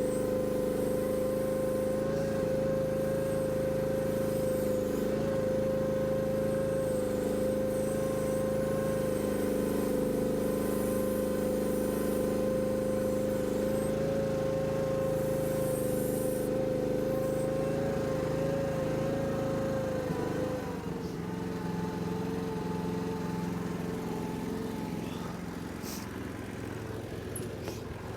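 Mini excavator's engine running steadily with a high whining tone over it; about twenty seconds in the pitch drops and it runs a little quieter.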